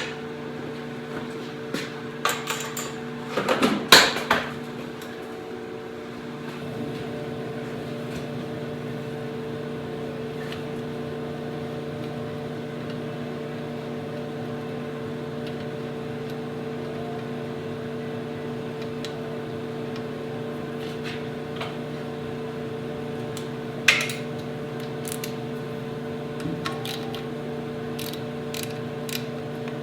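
A steady machine hum holding a few fixed tones, with a cluster of sharp knocks and clanks about three to four seconds in and another single knock at about 24 seconds.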